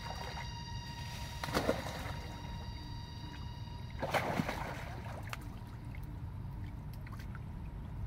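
Water splashing twice as monkeys move through shallow muddy water, over a steady low rumble. A faint steady high-pitched whine fades out about halfway through.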